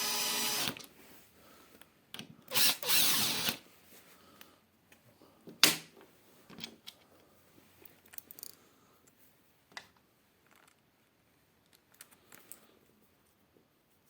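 Cordless screwdriver motor running in two short runs of about a second each, driving a self-centring pilot-hole bit through a hinge bracket into wood. A single sharp click follows a few seconds later, then only faint handling clicks.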